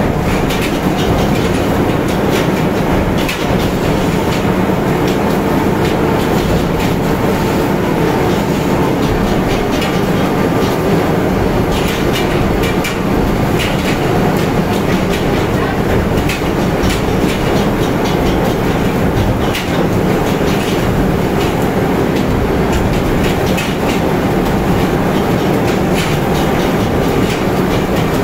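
Seawater gushing and churning down a fish chute into a ship's hold, with tuna splashing and knocking as they drop in. Over it runs a steady rumble of machinery.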